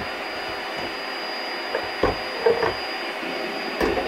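A few hollow plastic knocks and clunks in the second half as the Bissell rug shampooer's clear plastic recovery tank is handled. Under them runs a steady hiss with a thin high whine.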